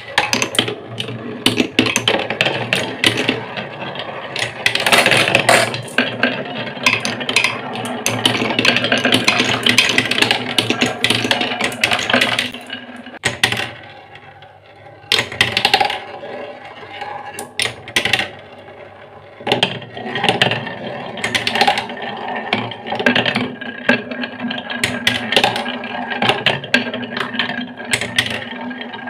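Glass marble rolling and clattering along wooden marble-run track, a steady rattle with rapid clicks. It goes briefly quieter about halfway through, then the marble rolls on around a wooden spiral track.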